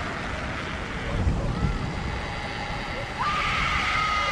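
Horror sound effect: a dark, rumbling noise bed, with a long wavering wail rising in about three seconds in and held to the end.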